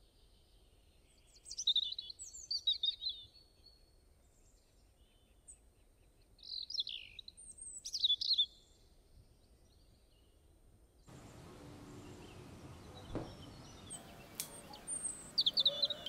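Small birds chirping and twittering in three short bursts of quick high gliding calls. A faint steady hiss comes in about eleven seconds in, with a single soft knock a couple of seconds later.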